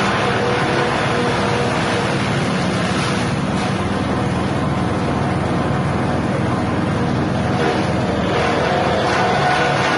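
Grass chopper machine driven by a 6.5 hp petrol engine, running steadily.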